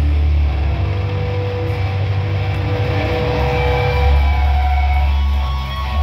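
Live metal band playing loud electric guitars and bass, holding a heavy sustained low drone with long ringing guitar notes above it.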